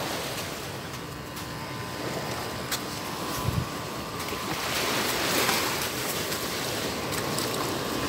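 Small waves washing up on a sandy shore, a steady wash that swells a little louder about halfway through, with a light knock or two in the middle.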